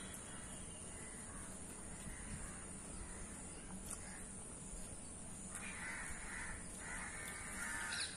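Faint harsh bird calls, growing louder in two stretches past the middle.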